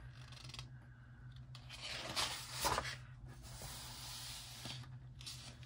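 A large paperback coloring book's page being turned, a paper swish and rustle about two seconds in, then a hand sliding over the paper to smooth the new spread flat. A steady low hum runs underneath.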